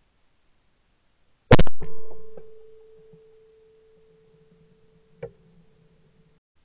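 A shotgun fires a single loud shot at a trap clay about a second and a half in, and the report dies away over the next second or so. A faint steady tone lingers afterwards, with a light click about five seconds in.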